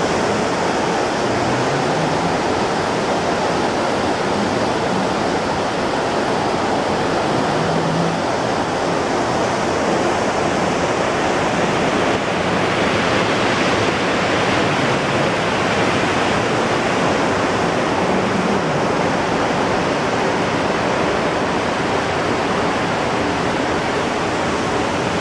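Steady rushing noise on the open deck of a moving cruise ship: wind over the microphone mixed with water rushing along the hull.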